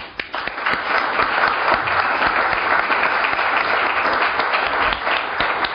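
An audience applauding a speaker at the close of a lecture, the clapping starting abruptly and holding steady.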